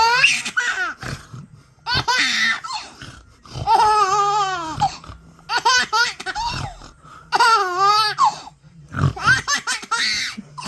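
Baby laughing hard in about six high-pitched, squealing bursts of a second or so each, with short breaths between them.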